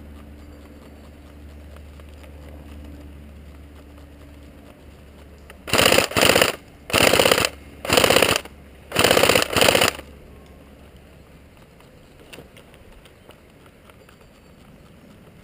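Airsoft gun firing on full auto: several short bursts of rapid, even shots over about four seconds, some bursts coming in quick pairs, starting about six seconds in.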